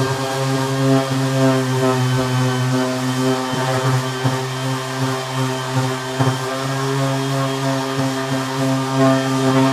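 Handheld electric power tool running steadily on a wooden leg, a constant motor hum with small dips in level as it is worked along the wood.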